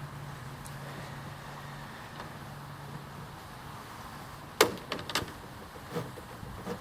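A few sharp metallic clicks and knocks from the parts of a small portable phonograph being handled and fitted, the loudest just past the middle. A low steady hum fades out before them.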